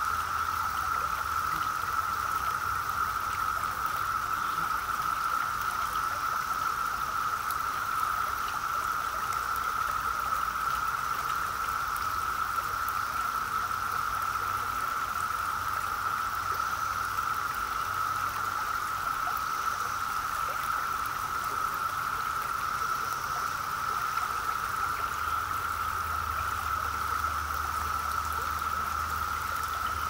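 A dense chorus of cicadas makes one steady, unbroken drone over the babble of a shallow rocky stream. A few faint high bird notes come and go in the middle.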